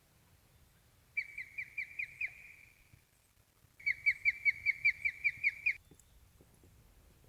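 A bird calling: two runs of quick, repeated high notes, each note sliding down in pitch, about five a second. The first run is short and the second, starting about four seconds in, is longer and louder.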